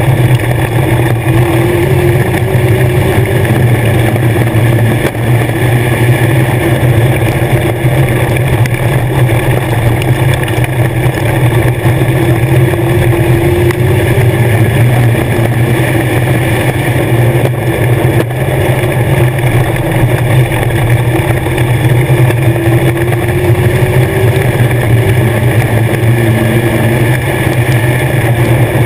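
A Legends race car's Yamaha motorcycle-derived engine running hard at racing speed, heard loud from inside the cockpit. The engine note rises and falls gently every several seconds as the car goes down the straights and through the turns.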